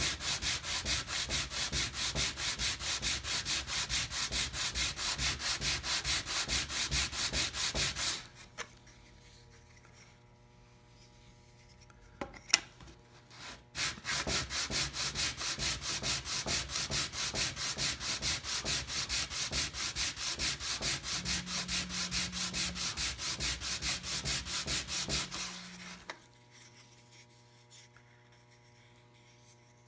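A small wooden model part rubbed by hand back and forth on a sheet of sandpaper fixed to a board: quick, even rasping strokes for about eight seconds. Then a pause broken by one sharp knock, and a second long run of strokes that stops a few seconds before the end.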